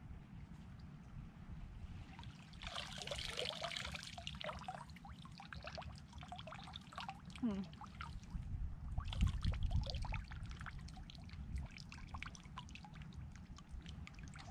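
Water splashing and trickling as a long-handled crab dip net is swept through shallow water and lifted, water running and dripping off it. There are two spells of splashing, about two seconds in and again about nine seconds in, over a low steady rumble.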